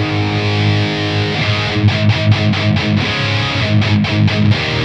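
Distorted electric guitar played through an IK Multimedia TONEX One amp-modelling pedal: ringing chords with short choppy stops about two seconds in and again near the end.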